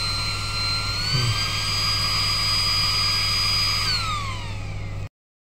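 Small electric fan unit whining over a steady low hum. Its pitch steps up about a second in, then winds down as the fan spins down, and the sound cuts off abruptly near the end.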